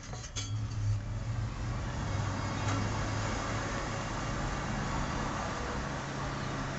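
A motor running steadily nearby: a low hum with a wash of noise.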